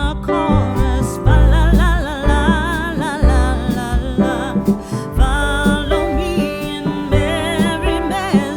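Background song: a voice singing with a wavering vibrato over plucked strings and a heavy, pulsing bass.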